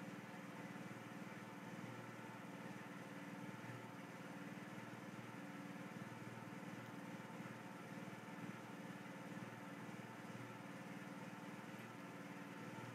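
Faint steady mechanical hum with a low drone, like a motor or fan running.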